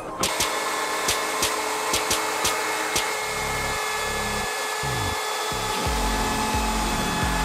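Compact trim router running and cutting along the edge of a plywood panel: a steady whine over a dense cutting noise, with its tone shifting briefly about halfway through.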